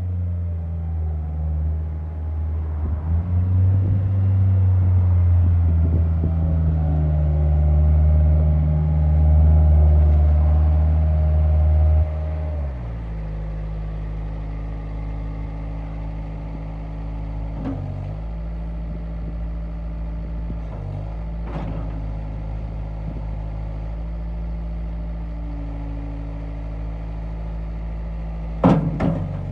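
2007 Bobcat skid-steer loader's diesel engine running at raised revs, then about twelve seconds in it drops to a steady lower idle. A few sharp knocks follow, with a louder clunk near the end.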